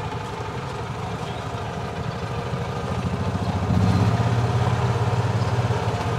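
Golf cart engine running with a rapid, even pulsing beat, growing louder a little past halfway as the cart pulls away.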